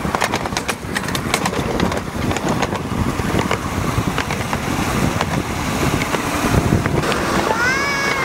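Ride-on miniature railway train rumbling and clattering along the rails, with a quick run of clicks in the first couple of seconds and wind on the microphone. Near the end a toddler lets out a short squeal that rises and then falls.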